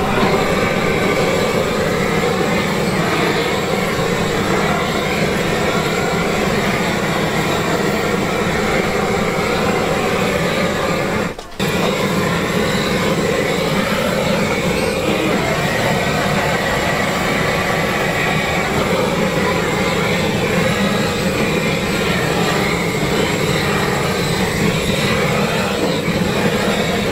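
Handheld gas blowtorch burning steadily as it sears chicken pieces on a charcoal-style grill. The noise cuts out for a moment about halfway through, then carries on.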